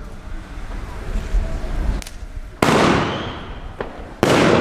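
Fireworks going off: two loud bangs about a second and a half apart, the first about two and a half seconds in, each followed by a long echoing tail.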